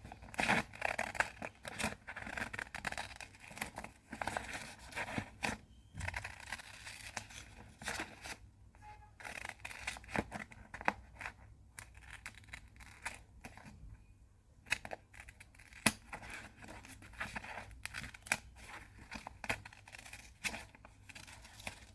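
Scissors snipping through paper covered in clear sticky tape: many short, irregular cuts with brief pauses, as a shape is cut out.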